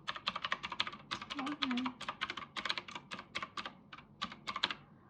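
Rapid typing on a computer keyboard: a quick, uneven run of key clicks that stops shortly before the end.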